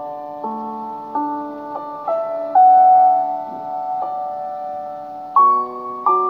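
Slow background piano music: single notes and chords struck every half second to a second or so, each ringing on.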